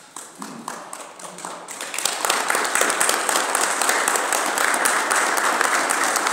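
Applause from a small seated audience: a few scattered claps that swell about two seconds in into steady, full applause.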